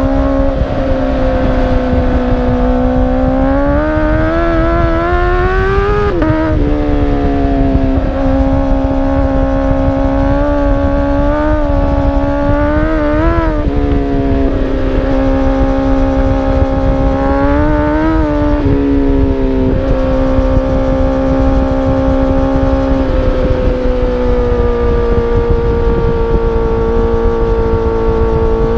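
Exhaust of a 2017 Honda CBR1000RR Fireblade's inline-four, fitted with a Toce Performance Razor Tip exhaust, while riding. The engine holds steady revs, rises over a few seconds, then drops about six seconds in, with several short rises and falls of the throttle after that and a small drop in revs later on.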